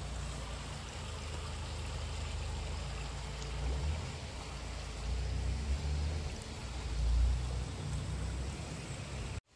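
Shallow, clear spring-fed stream flowing over a stony bed, a steady rush of water with an uneven low rumble on the microphone. The sound cuts off abruptly near the end.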